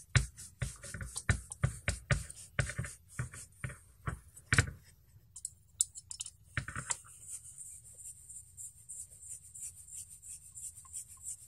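Hex screwdriver and carbon-fibre frame plates clicking and knocking as screws are tightened into the standoffs of a drone frame. The irregular clicks and taps are dense for the first few seconds, come as a few more about seven seconds in, then thin out to small ticks.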